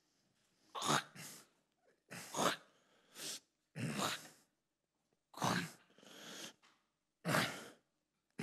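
A person breathing in loud, forced gasps and huffs, about eight separate breaths at uneven intervals.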